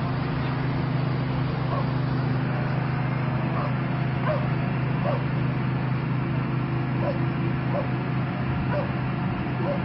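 A dog barking repeatedly in short, sharp yips at irregular intervals, over the steady low drone of fire engines running.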